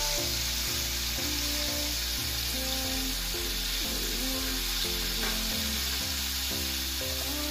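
Flour-battered gurame pieces deep-frying in a wok of hot oil, a steady sizzle, over background music with a steady bass line.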